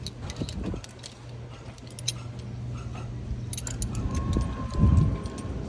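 Stainless steel forestay lever and toggle fittings clinking and rattling as they are handled, in scattered light metallic clicks. A loud low thump about five seconds in.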